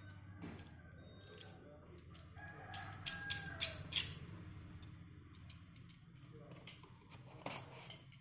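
A rooster crowing once, a drawn-out call lasting about two seconds, over a steady low hum, with sharp clicks and rustles of handling around the middle and again near the end.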